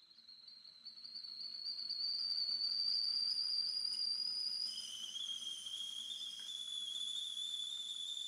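Stovetop kettle whistling at the boil: a high whistle that swells over the first two seconds and creeps slightly upward in pitch, then drops suddenly to a lower steady note about five seconds in.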